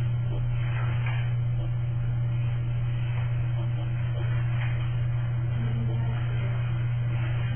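Steady low electrical hum, like mains hum, with only faint background noise over it.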